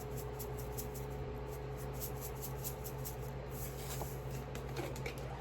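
Dried seasoning being shaken from a spice container into a bowl: short runs of quick, light, gritty ticks that come and go, over a steady low hum.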